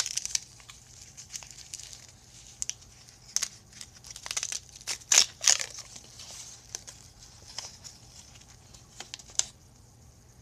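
A tea bag's packet crinkling and tearing as it is handled and opened. The rustles come in irregular spurts, loudest around the middle, and stop near the end.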